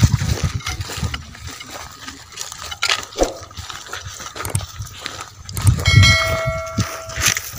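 Footsteps and rustling on dry, cloddy ploughed soil as people walk across a field, with irregular low bumps from the walking. Near the end a steady pitched tone with overtones sounds for about a second.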